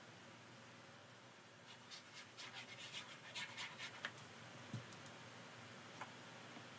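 Faint scratching and tapping of a fine-tipped glue applicator on paper as glue is laid on the back of a card: a run of quick short strokes for about three seconds, then a light tick or two.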